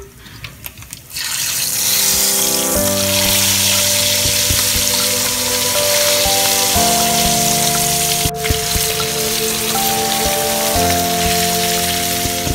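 Fish frying in hot oil in a pan: a steady sizzle that starts about a second in. Background music with sustained, slowly changing chords plays over it.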